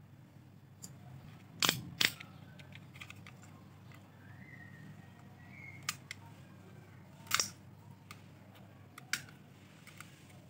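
Sharp metallic clicks and taps as a strip of steel staples is handled on concrete and a craft-knife blade prises staples off it: two loud clicks about two seconds in, another loud one past the middle, and a few lighter ticks, over a low steady hum.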